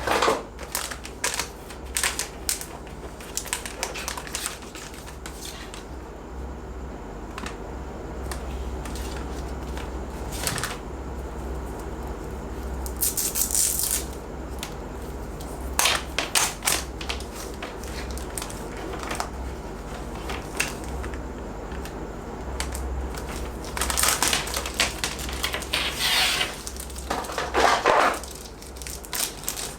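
A mechanical keyboard and its packaging being handled: scattered sharp clicks and taps, with several longer crinkling, rustling bursts about halfway through and again near the end, over a low steady hum.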